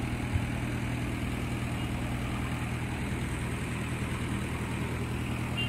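An engine idling: a steady low hum that does not change.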